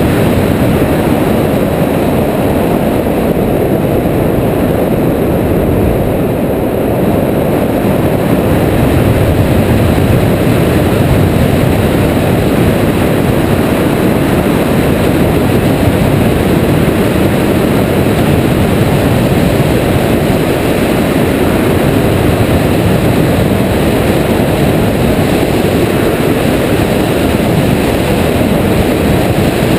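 Steady rush of wind over the microphone of a camera mounted on a hang glider's wing in flight: a dense, even low rumble with no engine tone.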